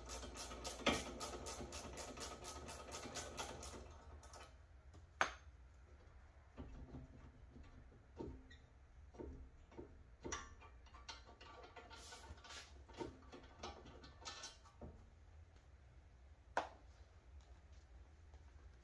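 Socket ratchet clicking rapidly and evenly for the first four seconds while the brake caliper bolts are worked loose, then scattered metal clinks and knocks from the wrench and bolts, with three sharper knocks.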